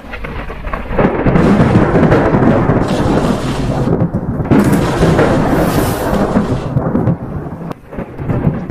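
Thunder-like rumbling sound effect: a deep, dense rumble that swells up about a second in, with hissing surges higher up around the middle.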